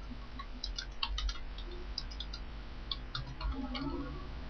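Computer keyboard keys clicking in quick, irregular runs as a short phrase is typed.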